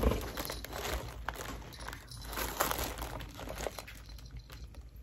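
Faint rustling and small scattered clicks of hands fiddling with a cat wand toy, working a ring through the hole of a wooden wand.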